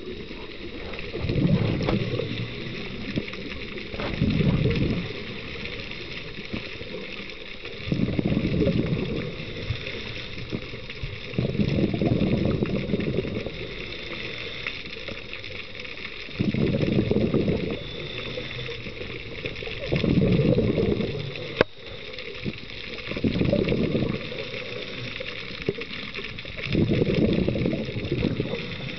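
Scuba diver's exhaled bubbles from the regulator gurgling underwater in regular bursts, about one every three to four seconds, over a steady high hiss. There is one sharp click about three quarters of the way through.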